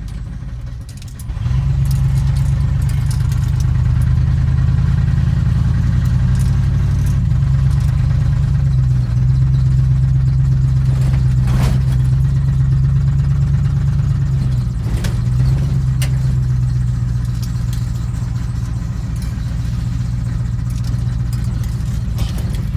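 Squarebody pickup truck's engine and exhaust droning steadily while driving, heard from inside the cab. The engine note swells about a second and a half in and shifts a few times, with a brief sharp click about halfway through.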